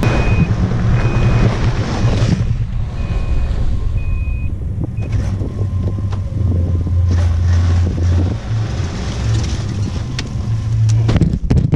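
Ski-Doo Skandic 900 ACE snowmobile's three-cylinder four-stroke engine running warm as the machine moves off, its reverse alarm beeping about once a second for the first five seconds or so. The engine note grows stronger in the middle of the run.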